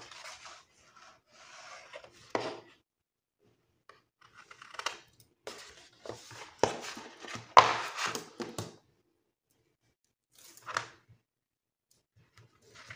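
Paper being trimmed and handled in crafting: irregular rustling and scraping, with a few sharper snips or taps, the loudest a little past halfway.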